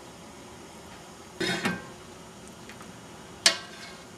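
Metal ladle clinking and scraping against a stainless sauté pan and roasting pan as sauce is spooned out: a short clatter about a second and a half in, then one sharp clink with a brief ring a couple of seconds later, the loudest sound.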